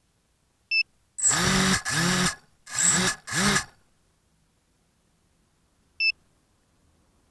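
ZMR250 racing quadcopter's brushless motors and props spinning up in four short throttle blips, in two pairs, each a quick rise and fall in pitch with loud whooshing prop noise. A short high beep sounds just before them and another near the end.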